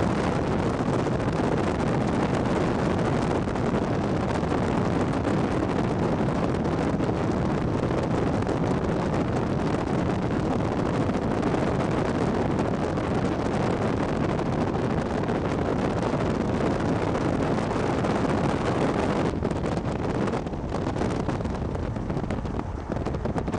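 Steady, loud rushing noise of wind buffeting the microphone, dipping briefly about 19 and 20 seconds in and easing slightly near the end.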